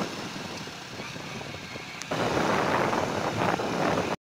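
A Hero Splendor Plus's single-cylinder four-stroke engine running at a steady low idle, then about two seconds in loud wind rush on the microphone sets in as the motorcycle pulls away. The sound drops out briefly right at the end.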